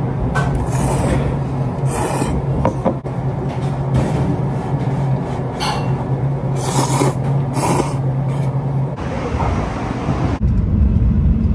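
A person slurping udon broth from the bowl and then the noodles: a few loud, rasping slurps over a steady low hum. About nine seconds in this gives way to a louder low rumble.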